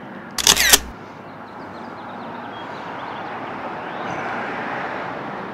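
Steady street traffic noise, with one brief, sharp, loud burst about half a second in.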